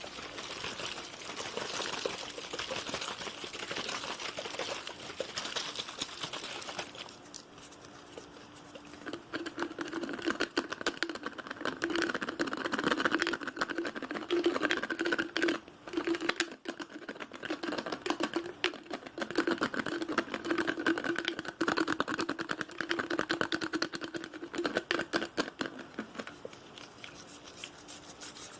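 Fast, aggressive fingertip tapping, a dense stream of quick taps. From about a third of the way in, the taps ring with a steady tone, as on a hollow object.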